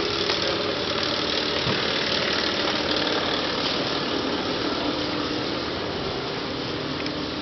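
Idling engine of a passenger train standing at the platform: a steady, even hum with faint steady tones over a constant noise.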